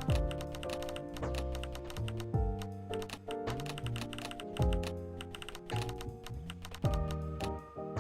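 Background music with a steady beat: deep bass hits about every two seconds under sustained chords that change every second or so, with fast clicking percussion throughout.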